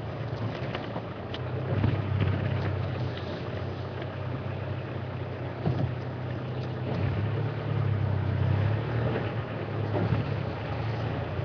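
Vehicle engine running at a steady low drone while driving along a dirt track, over tyre and wind noise, with a few brief knocks and rattles from jolts on the road.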